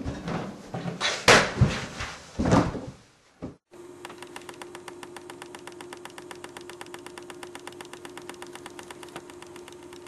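A few knocks and clatters, then a microwave oven running: a steady hum with a fast, even ticking rattle.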